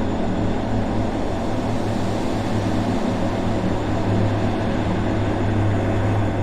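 Suspense ambience sound effect: a steady low drone under a thick, even hiss, with no breaks or changes.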